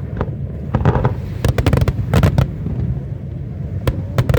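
Fireworks bursting in quick clusters of sharp cracks and bangs, about four volleys, over a continuous low rumble.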